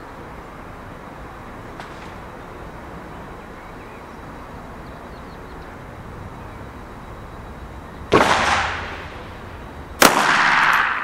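Two shots from a Frommer 37M semi-automatic pistol, about two seconds apart, the first about eight seconds in. Each is followed by an echo that dies away over about a second.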